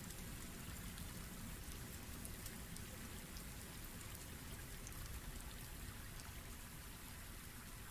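Faint, steady hiss with a few tiny ticks.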